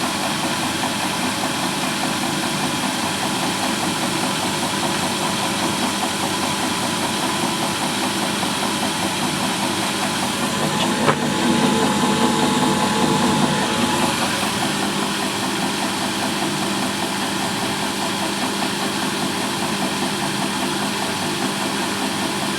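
Samsung WW60J3247JW washing machine with its drum spinning, the motor running steadily under a fast, even knocking. The owner takes the knock for a fault in the new machine, since it is heard even with the drum empty. A sharp click about halfway through, then the machine runs louder for a few seconds.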